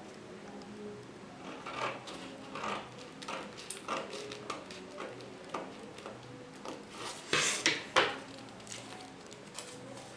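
Scissors snipping through a paper sewing pattern in short, irregular cuts, the loudest snips coming about three-quarters of the way through.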